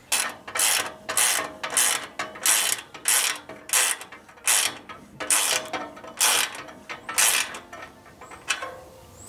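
Ratchet wrench tightening the nylock nuts on a Yagi antenna's boom-to-mast clamp, clicking through about a dozen quick, even strokes with a short pause near the end.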